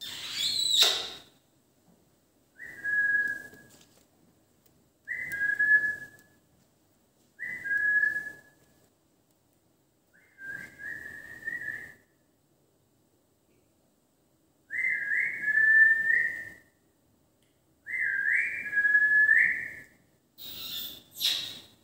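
Indian ringneck parakeet giving a harsh screech, then six short whistled notes a few seconds apart. Each note slides up and then holds steady, and the later ones are longer with a stepped rise. Two more harsh screeches come near the end.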